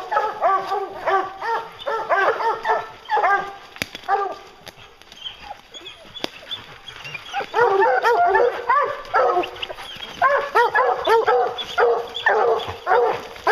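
A pack of hounds baying and barking at a tree, many voices overlapping: tree barking, the sign that the hounds have a bear treed. The chorus thins out for a few seconds in the middle, then swells again.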